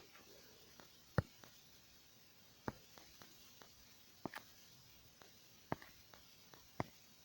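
A few sharp clicks and knocks at irregular intervals, over quiet room hiss.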